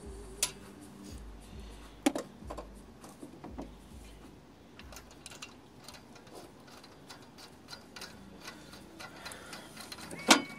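Scattered light metallic clicks and taps as a new spark plug and its socket are worked into a spark plug well on the engine's cylinder head and started by hand. One sharp click near the end is the loudest.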